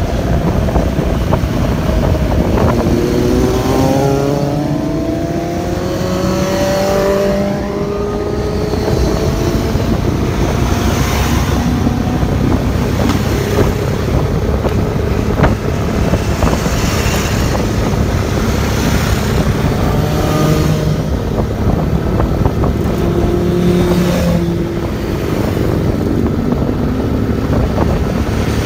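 Motorcycles riding at road speed, engines running under heavy wind noise on the microphone; an engine note rises as it revs up a few seconds in, and again about two-thirds of the way through.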